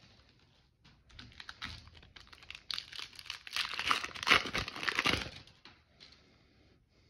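Foil wrapper of a 2022 Panini Absolute football card pack crinkling and tearing as it is ripped open by hand. It is a rapid crackle that starts about a second in, grows loudest in the second half, and stops about a second before the end.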